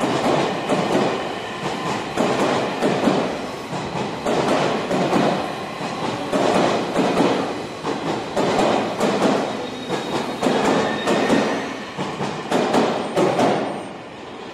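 Tokyo Metro 16000 series electric train pulling into an underground station, its wheels clattering over rail joints in a steady rhythm of about one beat a second. The sound dies away near the end as the train draws to a stop.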